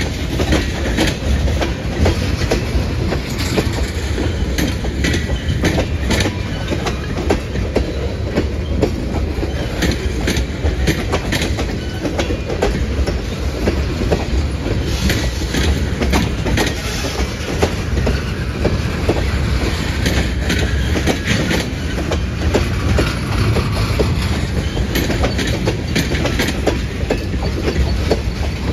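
Freight train of tank cars rolling steadily past close by: a continuous low rumble of wheels on rail, with frequent sharp clicks and clickety-clack as the wheels cross rail joints.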